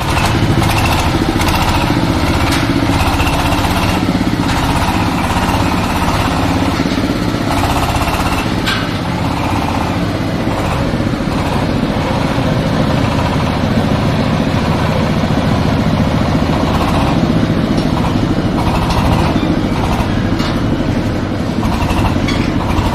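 Corn sheller machine for unhusked maize running steadily: loud, continuous mechanical noise with a rapid engine beat underneath.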